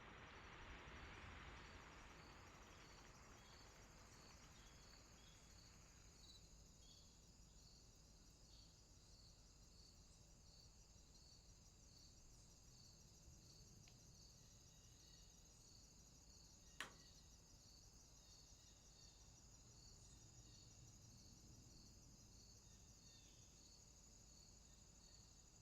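Faint crickets chirping: a steady run of high chirps, a little under two a second, over a steady high trill. A single sharp click about seventeen seconds in, and a soft hiss that fades away over the first few seconds.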